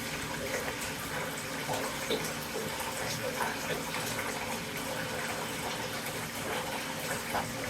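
Water running steadily from a tap into a bathtub, an even rushing hiss.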